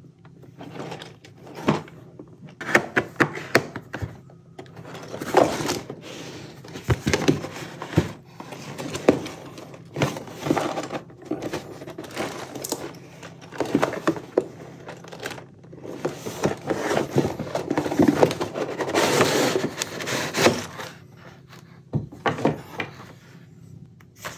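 Handling of a toy building-block set and its packaging: irregular clicks and knocks of small hard pieces, with stretches of rustling.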